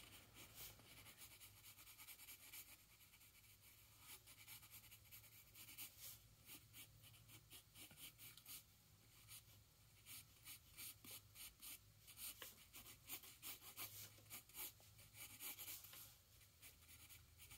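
Faint pencil scratching on paper: many short, quick sketching strokes of a graphite pencil drawing a figure.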